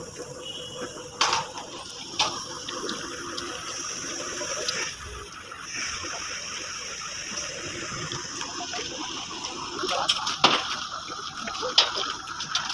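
Steady hiss of light drizzle falling on the wet work site, with a few sharp knocks and clicks, more of them near the end.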